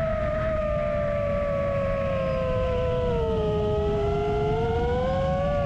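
Motors and tri-blade propellers of a 7-inch long-range FPV quadcopter whining in flight, over a steady low wind rumble. The whine sinks in pitch a few seconds in and rises again near the end as the throttle is eased and reapplied.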